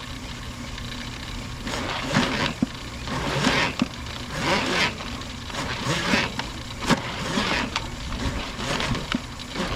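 Drain snake running in a 4-inch drain line: a steady motor hum with irregular rasping surges as the cable turns and works through the pipe.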